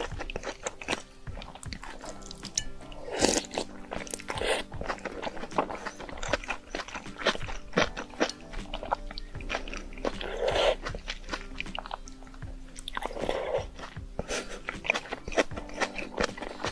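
Close-miked eating of a meal of instant noodles and shrimp: dense wet chewing with crisp crunches and bites, several longer louder mouth noises among them, over quiet background music.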